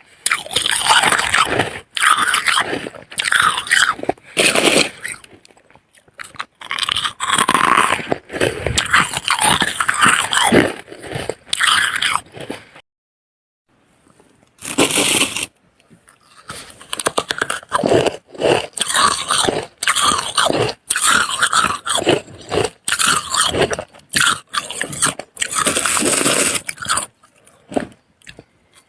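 Close-up crunching and chewing of freezer frost in the mouth: repeated crisp bites and chews, with a pause of about two seconds around the middle.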